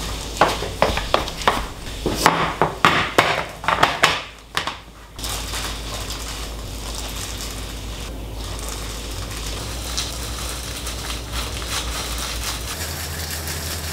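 Disposable plastic gloves crinkling against a sheet of dried laver as hands spread and pat rice for gimbap, with a run of sharp crackles in the first few seconds, then quieter, steadier rustling as the fillings go in and the roll is pressed.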